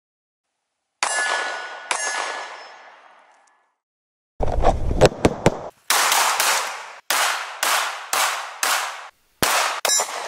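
Two ringing metallic clangs about a second apart, fading out, then a rapid run of .45 ACP pistol shots from a Smith & Wesson M&P Shield, roughly two a second, each with a short echo tail.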